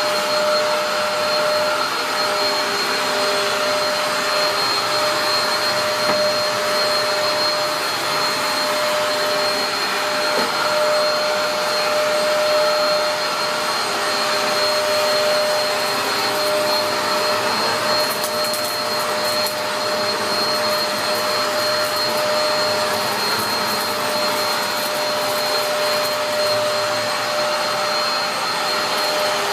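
Dyson DC03 upright vacuum cleaner running steadily, its motor note carrying a high, constant whine, with a patch of faint crackling about two-thirds of the way through.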